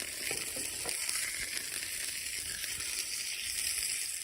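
Burgers frying, a steady sizzling hiss that cuts off abruptly at the end.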